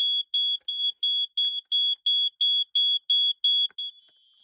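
BRK 86RAC smoke alarm's horn sounding on test: a high-pitched beep repeating evenly about three times a second, which stops about four seconds in.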